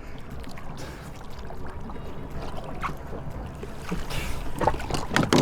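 Steady low rumble of wind and water around a small fiberglass bay boat at sea, with a few short sharp knocks or splashes near the end.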